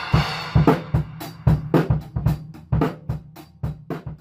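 Drum kit playing: a cymbal crash at the start, then a run of kick and snare hits that fade out near the end.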